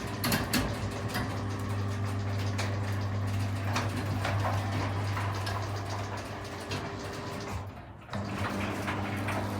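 Guardian roller garage door motor running with a steady hum while the door rattles along its travel; the motor cuts out briefly about eight seconds in and then starts again. The door's close travel limit is being set.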